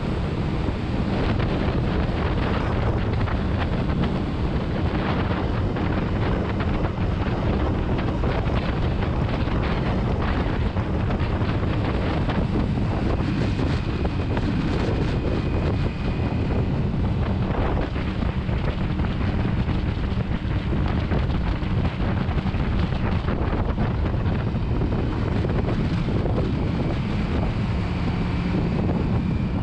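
Motorcycle engine running steadily at cruising speed, under heavy wind noise on the microphone.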